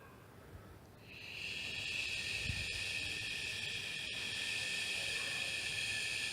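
A steady, high-pitched hissing buzz that swells in about a second in and then holds level.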